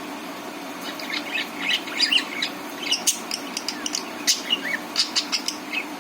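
Budgerigar chatter: a quick, irregular run of short high chirps and clicks that starts about a second in and stops just before the end, over a steady low hum.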